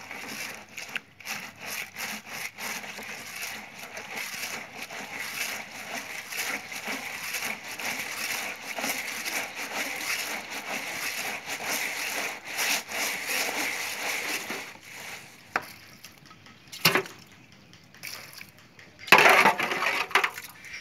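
Hands rubbing and squeezing pomegranate arils against a plastic colander's mesh, a steady wet, gritty rubbing that presses out the juice for pomegranate paste. It stops about 15 s in, and a few sharp knocks follow. Near the end comes a loud scrape as a metal cup scoops arils from a pot.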